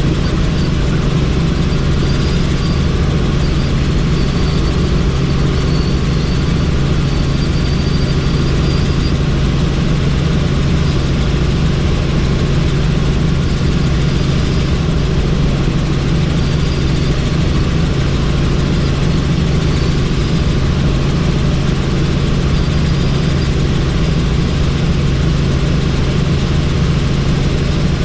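Helicopter in flight: a loud, steady drone of engine and rotor with a constant low hum.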